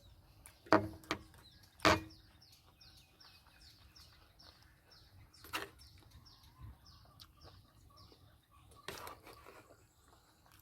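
A bird calling in the background, a run of short, high, falling chirps at about three a second that lasts several seconds. A few sharp knocks or clicks stand out over it, the loudest two near the start.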